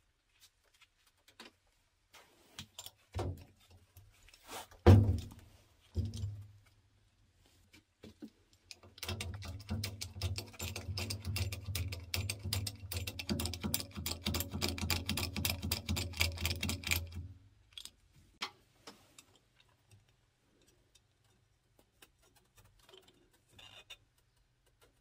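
A metal hydraulic bottle jack being handled and tipped over on a hard floor: scattered knocks and a heavy thump about five seconds in, then a run of rapid rattling clicks with a low hum for about eight seconds, and faint small clicks near the end.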